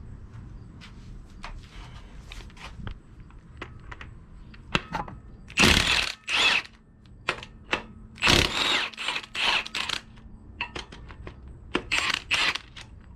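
Metal tools and engine parts clanking and scraping during an engine teardown: a run of sharp knocks and clicks, with a few louder harsh scrapes about half a second long.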